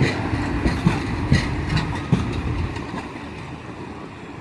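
Renfe Talgo passenger train pulling away, its wheels clicking over rail joints several times as the rumble fades with distance.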